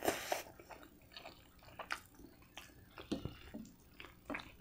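A short wet slurp of spaghetti in tomato sauce, then soft, scattered chewing and lip-smacking sounds.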